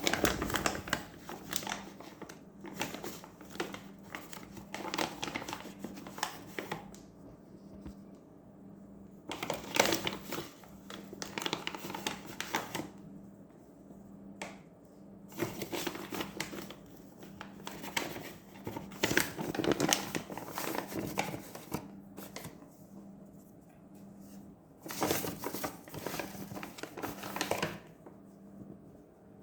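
All-purpose flour being scooped and poured into a mixing bowl: rustling and scraping in several bursts of a few seconds each, with short pauses between them.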